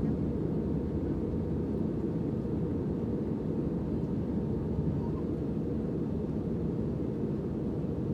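Steady low rumble of an airliner cabin, the jet engines and airflow heard from inside the plane.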